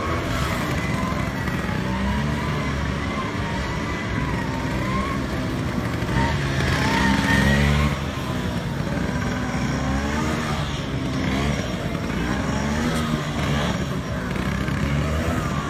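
Small scooter engine revving up and down with the throttle as the scooter weaves slowly through a tight slalom. It runs loudest about six to eight seconds in.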